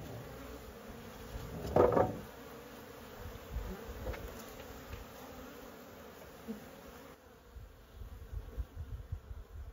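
Honeybees buzzing around their hives in a steady hum, with one louder swell about two seconds in.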